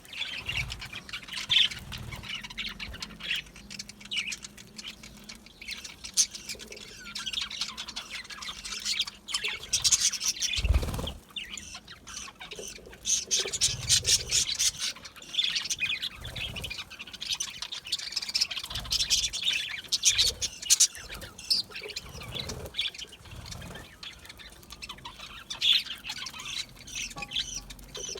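A flock of budgerigars chattering, with a steady mix of warbling chirps and short squawks from many birds at once, and an occasional low thump.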